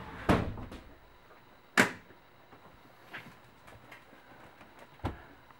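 About four separate short knocks and clicks, the sharpest about two seconds in, with little sound between them.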